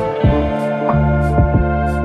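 Calm instrumental background music: plucked notes struck over steady held tones.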